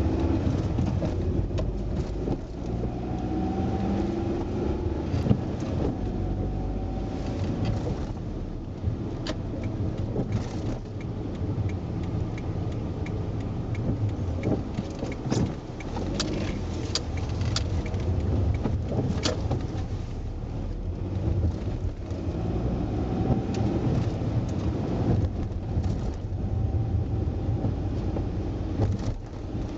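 Car driving, heard from inside: a steady low engine and road rumble. In the middle comes a run of light, evenly spaced ticks, about two a second, followed by a few sharp knocks.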